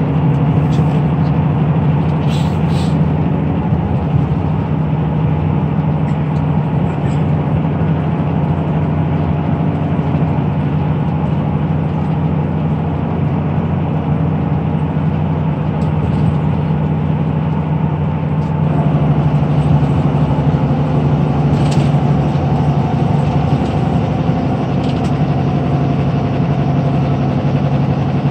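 Cabin sound of a 2009 Kia Granbird Sunshine coach cruising on its Powertec 425 PS inline-six VGT turbodiesel: a steady low engine drone over tyre and road noise, in a tunnel. About two-thirds of the way through, the drone rises a little in pitch and level.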